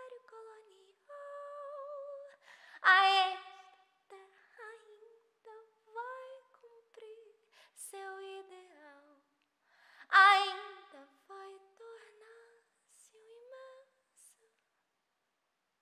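A woman singing a melody unaccompanied, mostly soft, with two louder held notes with vibrato about three and ten seconds in; the voice stops about fourteen seconds in.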